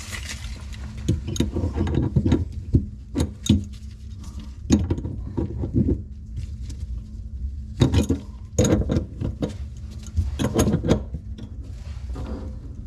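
Irregular clicks, knocks and clatter of tools and metal fittings being handled while working on shut-off valves and plumbing under a sink.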